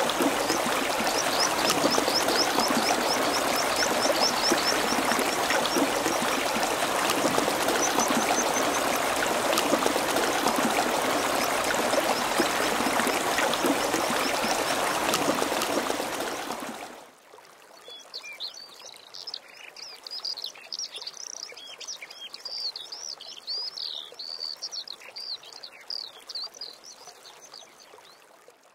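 Shallow river rushing over gravel riffles, a steady loud rush of water with a bird chirping rapidly over it in the first few seconds. About seventeen seconds in, the water sound cuts off suddenly, leaving quieter, busy birdsong.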